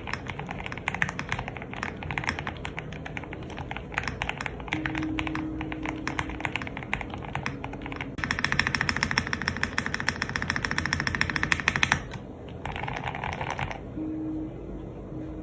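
Typing on a Spark 67 R2 mechanical keyboard with lubed Cherry MX Retooled Red linear switches and CMK WoB keycaps, producing a steady run of keystroke clacks. About eight seconds in, the keystrokes speed up into a fast, dense stream for about four seconds, and a shorter burst follows near the end.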